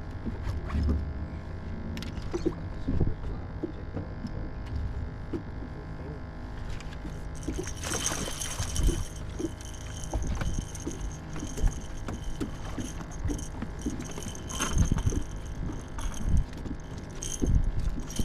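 Steady low hum of a fishing boat with scattered knocks and thumps on the boat, and a brief noisy rush about eight seconds in.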